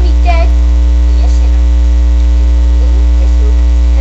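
Loud, steady electrical hum, with a stack of even, unchanging overtones, runs underneath everything. A brief voice sound comes over it just after the start.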